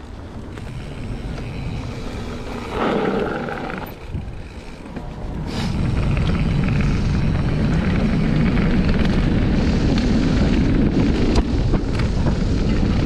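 Mountain bike riding fast down a dirt singletrack: wind buffets the microphone over the rolling tyres. The rumble grows louder and rougher from about six seconds in as speed picks up, with a few sharp knocks from bumps.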